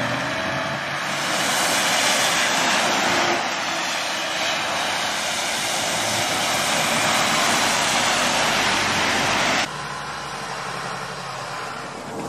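Steady, loud road and wind noise of a car driving at speed, heard through a dashcam's microphone. It drops off suddenly near the end to a quieter, lower hum.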